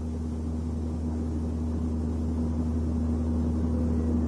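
Low, steady booming drone of a car cabin at road speed (about 90 km/h), slowly growing louder, with a steady higher hum above it. The boom sits at about 60 Hz, the frequency of a propeller shaft out of balance or with runout, most likely its cause.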